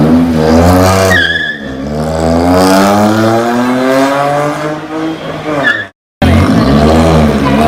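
Volkswagen Polo GT's engine and exhaust under hard acceleration. The revs climb, dip about a second in, then rise steadily for about four seconds. The sound cuts out for a moment near the end and comes back with the revs rising again.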